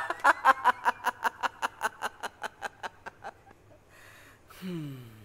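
A man laughing hard, rapid 'ha-ha' bursts about six a second that grow fainter and die out after about three seconds. Near the end comes one short vocal sound falling in pitch.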